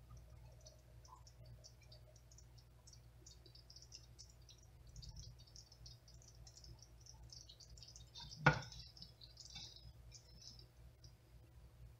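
Faint, irregular crackling and popping of thick peach preserves coming up to a hard boil, stirred with a wooden spatula in an enamelled pot. One sharp knock about eight and a half seconds in.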